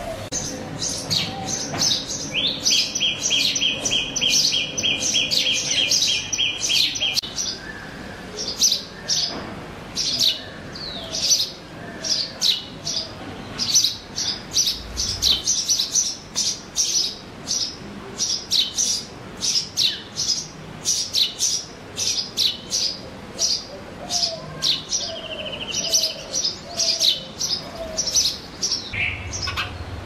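House sparrows chirping, a steady stream of short high cheeps repeated over and over. From about two seconds in to about seven seconds a rapid, even trill from another bird runs underneath.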